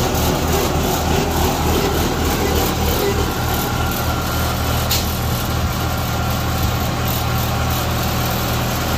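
Kubota DC-95GM combine harvester's diesel engine running steadily at idle, a low even drone, with a faint click about five seconds in.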